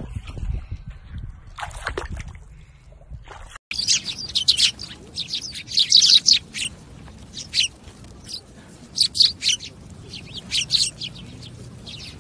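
A flock of Eurasian tree sparrows chirping: many short, high chirps in quick clusters, with the loudest bunch about six seconds in. For the first three and a half seconds there is only a low rumble.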